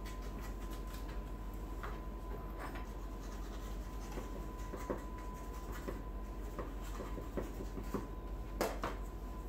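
A kitchen knife trims excess pie dough around a pie's rim, its blade scraping and tapping on the cutting board in short, irregular strokes. The loudest stroke comes near the end.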